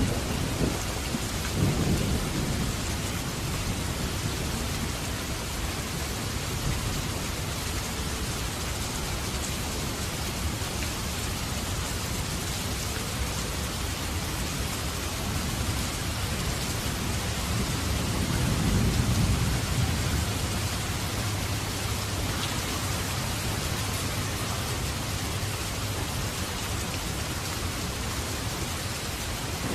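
Steady heavy rain hissing, with low rolls of thunder rumbling near the start and again about two-thirds of the way through.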